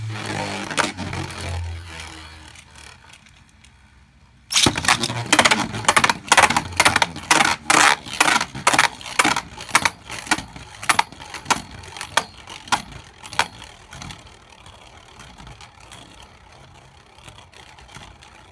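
Beyblade spinning tops whirring and scraping on a plastic stadium floor. About four and a half seconds in, the sound turns loud with a fast series of sharp clacks, about two a second, as the two tops collide again and again for around nine seconds. After that both keep spinning with a quieter steady rattle.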